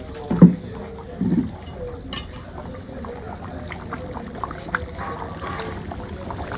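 Liquid sounds from a curry cooking in a pot, with two dull thumps near the start, the first the loudest, and scattered light clicks after.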